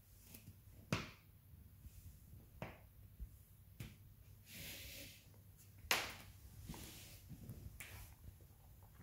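Bare foot pressing and squashing kinetic sand on a laminate floor: a few sharp taps spaced a second or two apart, the loudest about six seconds in, with a brief soft rustle just before it.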